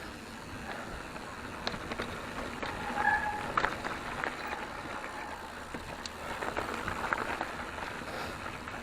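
Mountain bike riding over a rough trail: steady tyre noise on loose ground with scattered rattling clicks, and a short high squeak about three seconds in.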